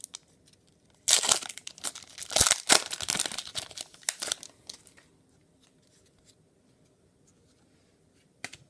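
A trading card pack wrapper being torn open and crinkled for about four seconds, then fading to faint handling, with a single click near the end.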